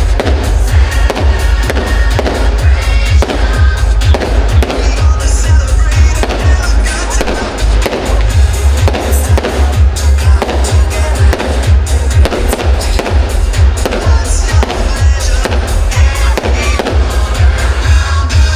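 Loud show music with a heavy bass, with fireworks bangs and crackles going off thick and fast over it.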